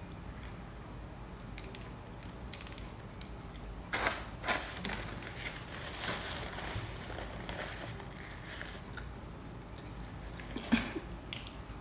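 A person chewing a mouthful of burger, with soft crunching and wet mouth noises. There are a few louder bursts about four seconds in and again near the end.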